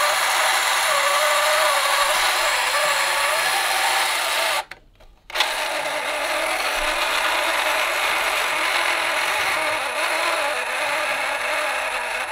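Small battery-powered electric motor and gear train of a 1971 Nintendo Ultra Scope periscope toy whirring steadily as it drives the telescoping mast. It cuts out for about half a second around five seconds in, then runs again.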